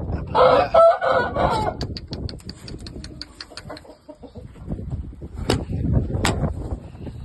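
A Shamo gamefowl stag gives a loud call, about a second long, near the start, followed by a quick run of light ticks and two sharp clicks later on.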